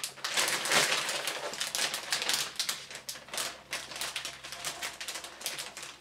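Plastic anti-static bag crinkling and crackling as a motherboard is slid out of it: a quick, irregular run of crackles that thins out toward the end.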